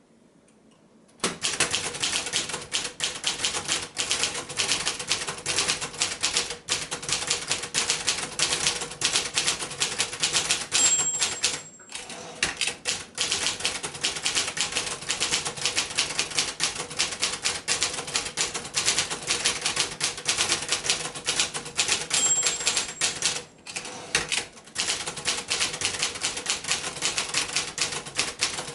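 Brother-built Escort 350 manual portable typewriter being typed on at a steady pace, with fast rattling key and typebar strikes. Twice a short high ring of the margin bell sounds, each followed by a brief pause in the typing.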